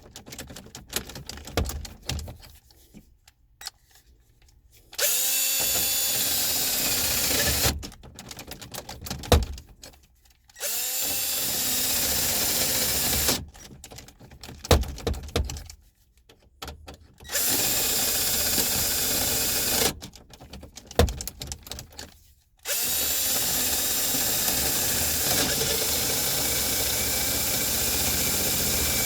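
Ridgid power drill boring out a jammed ignition lock cylinder, run in bursts of about three seconds four times, then again near the end. Short clicks and knocks fill the pauses between bursts.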